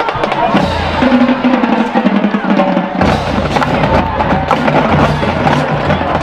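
Background music with drums and a heavy bass beat; the bass drops out for about two seconds and comes back about three seconds in.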